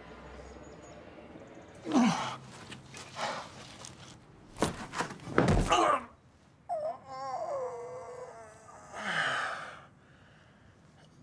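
A scuffle: a man cries out, there are several hard knocks and a heavy thud as a body hits the ground, then a long wavering moan.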